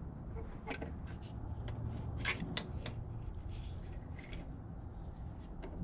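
Small clicks, taps and rubbing of plastic and metal parts handled by hand while an inverter generator's carburetor and choke linkage are fitted back together. The clicks come irregularly, over a low steady hum.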